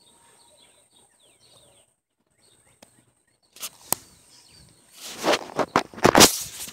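Faint bird chirps, then a couple of sharp clicks. In the last two seconds come loud rustling and knocking bursts: handling noise from a phone being gripped and swung about.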